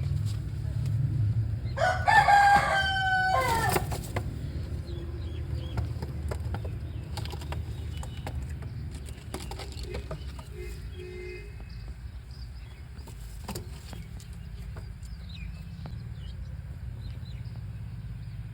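A rooster crowing once, about two seconds in, a loud call of about two seconds that drops off at the end, over a steady low rumble. A few faint bird chirps follow later.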